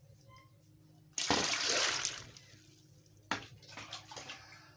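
Water poured into a cooking pot of peeled yam, a splashing pour that starts suddenly about a second in and tapers off after about a second. A sharp knock follows about two seconds later.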